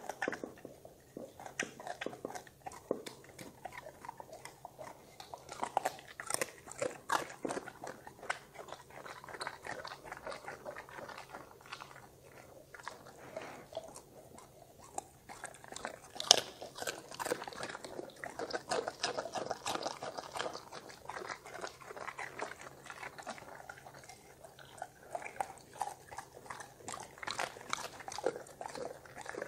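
Dogs chewing broccoli florets: irregular crisp crunches and bites throughout, the sharpest about halfway through.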